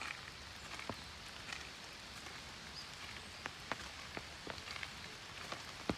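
Light rain in a forest: a steady patter with scattered drops ticking irregularly on leaves.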